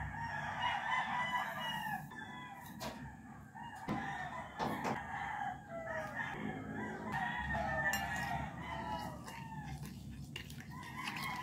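Chickens calling over and over, a rooster's crow among them, with a few sharp clinks of a spoon against a glass bowl.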